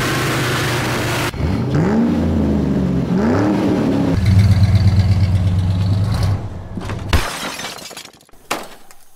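Carbureted V8 of a '68 Mercury Cougar drag car, blipped twice at the throttle so the pitch rises and falls each time, then held at a steady fast run for about two seconds before it cuts off. A few sharp clicks follow.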